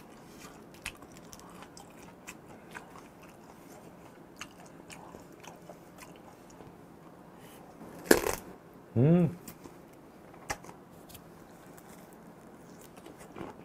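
Close-up chewing of raw bone-in gizzard shad sashimi: faint crunching clicks as the small bones are bitten through. A short loud noisy burst comes about eight seconds in, followed at once by a brief hummed vocal sound.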